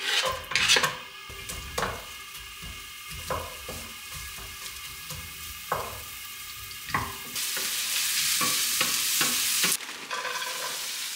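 Chopped onions scraped off a cutting board into hot olive oil in a frying pan, then sizzling while a wooden spatula stirs them with scattered knocks against the pan. The hiss grows louder for a couple of seconds and then cuts off suddenly. A few clatters follow as frozen pepper strips are tipped from a bag into the pan.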